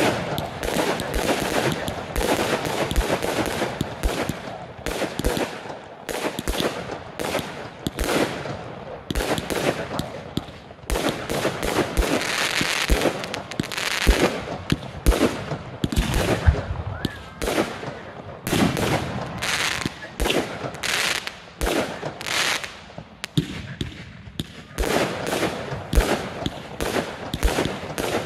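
Fireworks going off in quick succession: many sharp bangs, several a second and irregularly spaced, with crackling between them.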